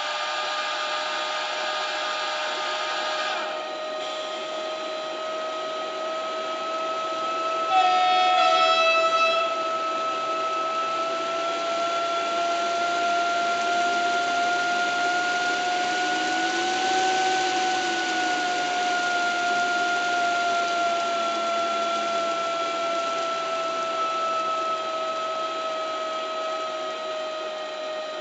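Model-railway sound decoder playing a Siemens Taurus electric locomotive's traction whine through the model's small speaker. The two-note whine rises slowly in pitch as the loco speeds up, peaks about two-thirds of the way through, then falls as it slows. A brief louder sound about eight seconds in and a hiss that drops away near the start.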